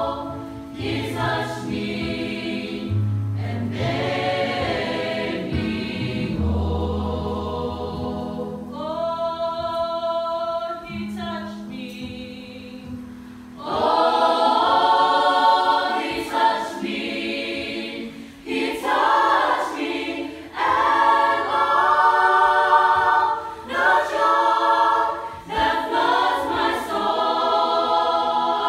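Samoan church choir of men's and women's voices singing a hymn in parts, unaccompanied. The singing swells much louder about halfway through.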